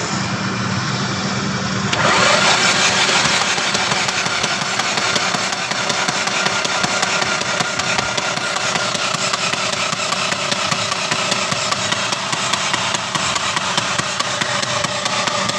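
Engine running with a steady, even beat, growing louder about two seconds in.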